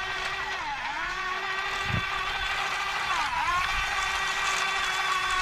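Electric motors of a Huina radio-controlled toy excavator running with a steady whine, its pitch dipping briefly twice as it drives and works its arm; one short low thump about two seconds in.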